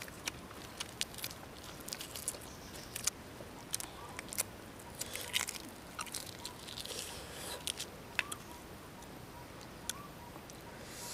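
Close-up chewing and crunching of fresh lettuce leaves, with many sharp crisp clicks and short crackles as the leaves and peeled boiled eggs are handled.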